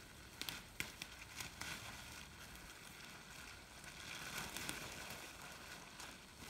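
Faint crinkling and rustling of a plastic tarp being gathered up, with a few sharp crackles in the first two seconds and a swell of rustling a little after the middle.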